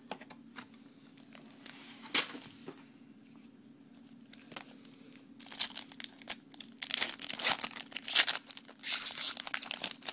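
Foil wrapper of a Bowman baseball card pack being torn open and crinkled: a few light crackles at first, then dense crinkling and tearing in the second half, loudest near the end.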